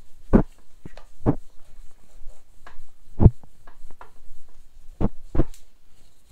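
Paper towel rubbing over the painted metal body of a vintage Necchi Supernova sewing machine during cleaning, broken by five dull, low thumps spread unevenly through.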